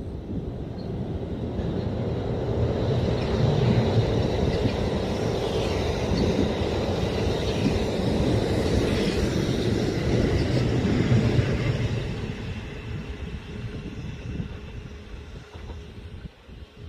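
Train passing by on the rails: a rumble that builds over a couple of seconds, holds for about ten seconds, then fades away.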